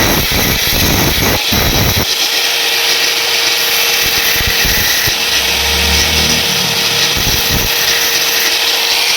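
A power tool working metal with a loud, steady grinding noise as the mechanic builds up the second worn rocker arm of a Hero Splendor engine, the wear blamed for the engine's tapping sound. Uneven rough pulses for the first two seconds settle into a steady whine.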